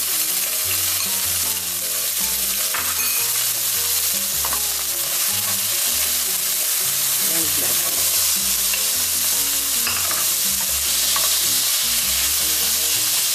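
Corn and mixed vegetables sizzling steadily in hot olive oil in a stainless steel frying pan, stirred with a wooden spoon.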